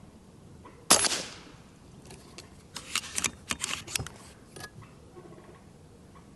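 A single moderated shot from a Brocock BRK Ghost .30 PCP air rifle, a sharp crack about a second in with a short fading tail. It is followed by a run of quieter sharp clicks and clacks from about two to five seconds in.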